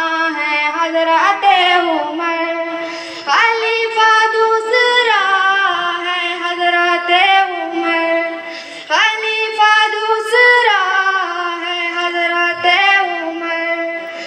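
A high voice singing an Islamic tarana in long held notes that slide between pitches, breaking off briefly three times.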